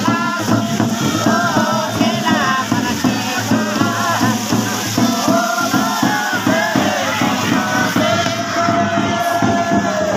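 Many voices singing together in a crowd, a long note held near the end, over the steady beat of a hand-held frame drum.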